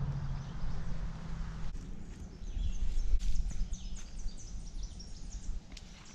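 Small birds chirping in quick, repeated high notes over a low rumble of wind and footsteps on the microphone. For the first couple of seconds a steady low hum with a hiss runs underneath, then stops abruptly.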